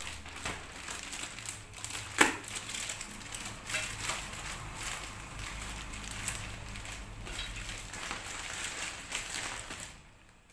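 Clear plastic bags and foam packing wrap crinkling and rustling in irregular handling as stool parts are unwrapped, with one sharp snap about two seconds in.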